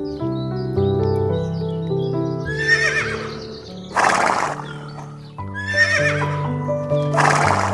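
Horse whinnying twice, each wavering call followed about a second later by a short noisy burst, over background music.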